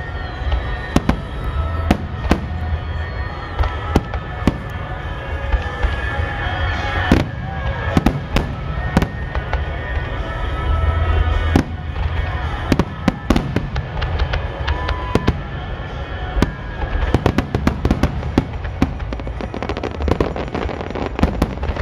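Aerial fireworks bursting one after another: sharp bangs and crackles over a continuous low rumble, the bangs coming thicker near the end.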